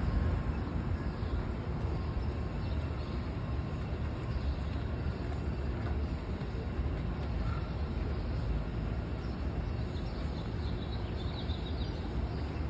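Steady low rumble of street traffic ambience, with no distinct events standing out.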